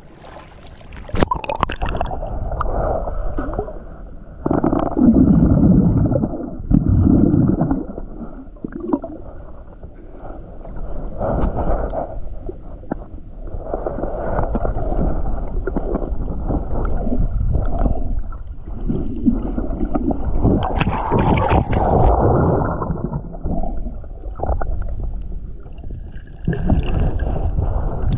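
Muffled underwater rush and gurgle of sea water surging in a rock pool, heard through a submerged camera, swelling and easing every few seconds.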